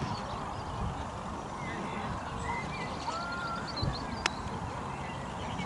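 Outdoor pitch-side ambience: distant voices and birds chirping over a steady low rumble, with one sharp click about four seconds in.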